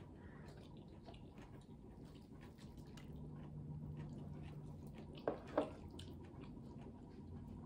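Eating sounds: chewing, and rice and dal squished and mixed by hand on a steel plate, with faint clicks throughout. Two short knocks come about five seconds in, as a ceramic bowl of dal is set back down on the table.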